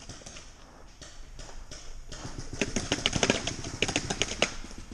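Paintball fire: a rapid string of sharp pops, several a second, starting about two and a half seconds in and stopping about two seconds later.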